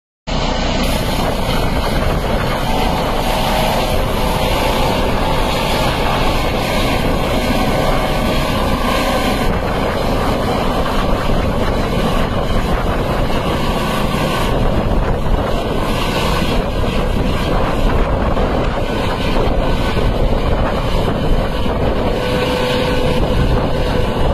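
Helicopter with a ducted fenestron tail rotor lifting off and flying overhead: steady, loud rotor and turbine engine noise.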